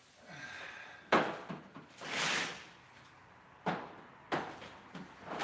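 A series of knocks and clunks, like a drawer or door being handled, the loudest about a second in, with a short hiss a little after two seconds.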